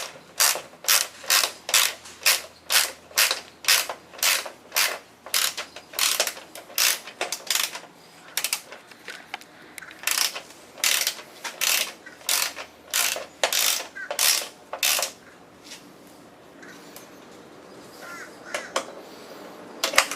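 Hand socket ratchet wrench swung back and forth, clicking in quick strokes about two a second as it cranks the motorcycle's rear fender bolts down tight. The strokes pause about eight seconds in, start again, and stop about fifteen seconds in.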